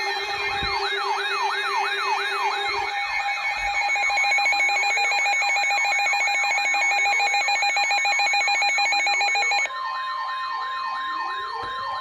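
Overlapping electronic siren wails and alarm tones: several sirens sweep up and down over steady beeping tones, with a fast buzzing pulse in the middle. About ten seconds in, the buzzing stops and one steady held tone comes in under the sweeps.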